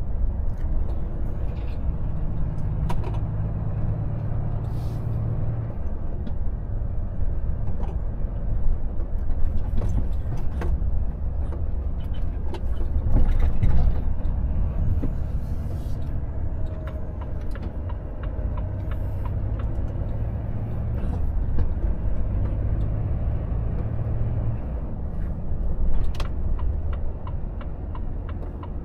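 Volvo FH truck's diesel engine running as it drives, a steady low drone with road noise, its pitch rising and easing with the load. Scattered light clicks and rattles are heard throughout, and a faster regular ticking comes in near the end.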